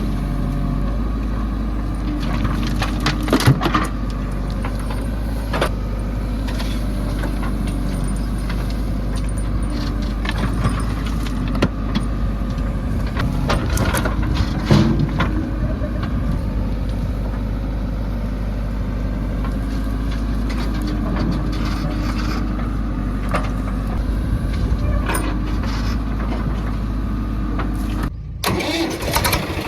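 A JCB 3DX backhoe loader's diesel engine running steadily, with scattered metallic clanks and knocks from the working machinery. The sound breaks off briefly near the end.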